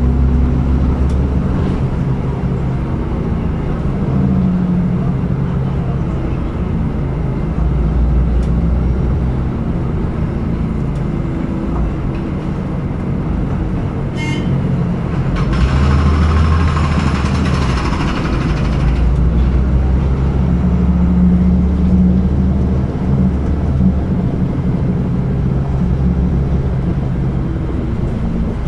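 City bus engine running, heard inside the cabin at the back of the bus, its low hum shifting in pitch as the bus speeds up and slows. A short run of quick ticks comes about halfway through, followed by a few seconds of hissing.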